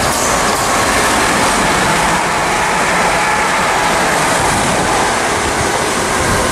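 A South Western Railway electric multiple unit running through the station without stopping: a steady loud rush of wheel and rail noise as it passes close by.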